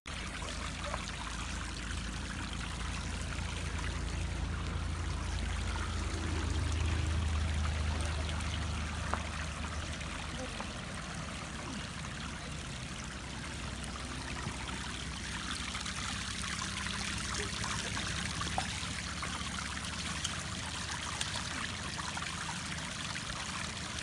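Water flowing and trickling steadily from a stone Shiva lingam set in the ground, over a low rumble that swells between about six and nine seconds in.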